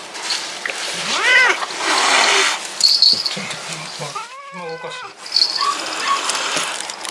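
Angry tabby-and-white cat yowling and hissing: a short rising-and-falling yowl about a second in, a hiss right after it, and a longer, lower yowl around four seconds in.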